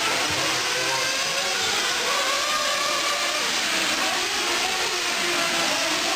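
Several 1/8-scale nitro truggies' small glow-fuel two-stroke engines buzzing and revving together as they race, many high whines rising and falling over one another without a break.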